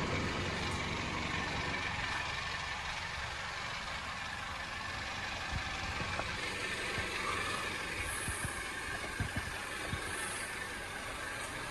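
Toyota Camry sedan idling steadily, a low even hum, with a few faint scattered clicks.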